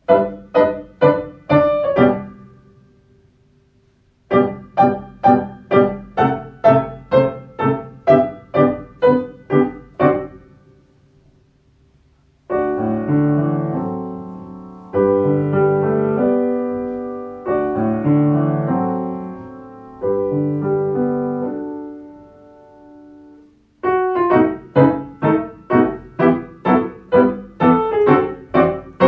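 Piano music for children's eurhythmics, alternating two styles. First come short, detached bouncing chords at about two to three a second, stopping twice. Then a smooth passage of held, flowing notes starts about 12 seconds in. The bouncing chords return near the end. The sudden stops are cues for the children to freeze.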